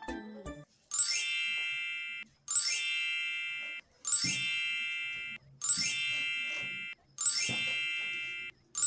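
A bright bell-like chime struck six times, about every second and a half, each strike ringing and fading away.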